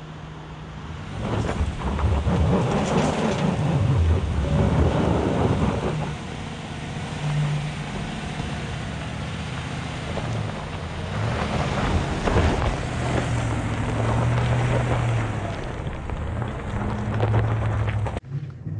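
Chevrolet Silverado ZR2 pickup with its 6.2-litre V8 climbing a loose, rocky gravel slope, its engine note rising and falling over the rumble of tyres on stones. It is loudest twice, about two seconds in and again around eleven seconds in, as it comes up and drives past.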